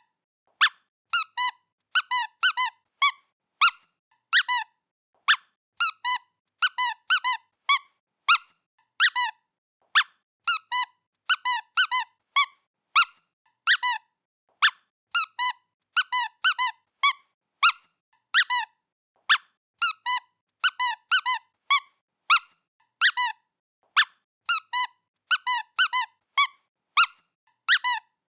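Squeaky toy squeaking again and again as a cat plays with it: short, high squeaks in irregular ones, twos and threes, about two a second.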